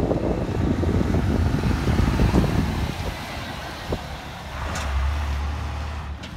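International (Navistar) medium-duty dump truck's diesel engine and tyres driving past close by, a loud low rumble that is strongest in the first couple of seconds, then eases off as the truck pulls away.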